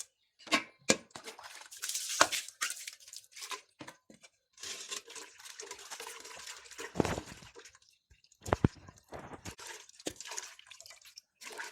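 Kitchen food-preparation sounds: a string of knocks and clicks, with two longer stretches of wet, rustling noise.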